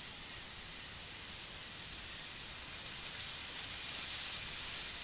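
Ocean surf breaking and washing over shore rocks: a steady hiss of foaming water that swells louder about three seconds in.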